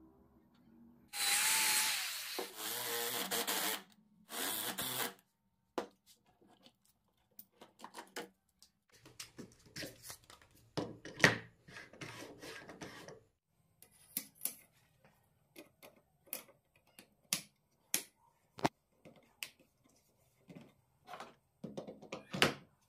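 A power drill running in two bursts, a long one of about three seconds and then a short one, driving screws into a wooden stop block. Then a run of scattered light knocks and clicks as the wooden jig parts are handled and set.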